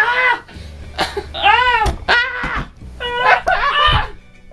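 Young people's playful wordless shrieks and whoops, three loud rising-and-falling cries, with two dull thumps, about two seconds in and near the end, of someone landing on a bed or floor.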